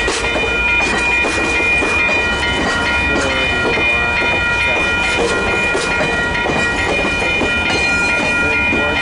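VIA Rail passenger train rolling past, wheels clacking over rail joints in a dense irregular run of clicks, with steady high-pitched ringing tones held throughout.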